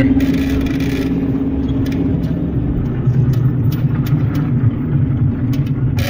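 Car driving, heard from inside the cabin: engine and tyre rumble. A steady hum fades about two seconds in as the road changes from asphalt to a rough dirt road, and small knocks and rattles follow.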